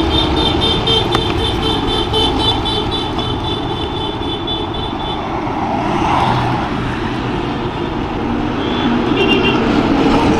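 Road traffic passing on a busy city street, engines and tyres making a steady loud noise. A high, rapidly pulsing tone runs through the first half, and a vehicle horn sounds briefly near the end.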